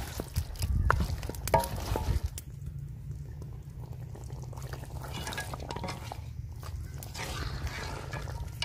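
A spoon stirring simmering beef karahi in a large metal pot, clinking and scraping against the pot's side. The clinks come mostly in the first two seconds, then the pot simmers more quietly.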